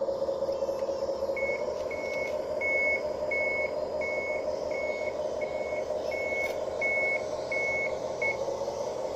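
Reversing beeper of a 1:12-scale model bulldozer sounding eleven evenly spaced beeps, about one and a half a second, starting about a second and a half in and stopping shortly before the end. Under it runs a steady drone from the running machine.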